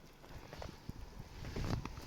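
A few irregular footfalls and knocks, growing louder near the end.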